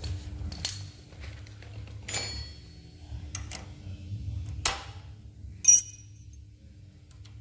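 Metal parts of a front sway-bar end link with rod-end joints clicking and clinking against the suspension as it is fitted by hand. About five short sharp clicks; the loudest, about two-thirds of the way in, rings briefly.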